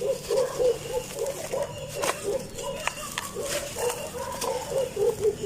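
Dry sand-cement crumbling, with crisp crunches and crackles over a quick run of low pulses about four a second.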